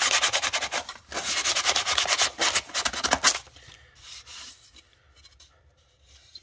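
Sandpaper rubbed by hand over the edge of a plastic model kit part, in quick back-and-forth strokes, smoothing away seam bits as prep work. The strokes come in two runs with a short break about half a second in and stop a little over three seconds in, followed by one faint brief rub.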